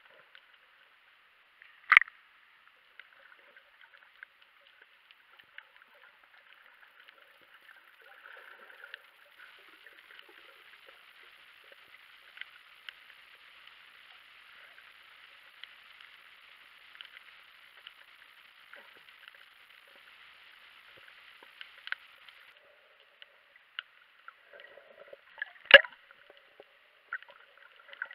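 Underwater ambience picked up by a camera in its waterproof housing: a faint, steady crackling hiss with scattered small ticks, and two sharp knocks, one about two seconds in and one near the end.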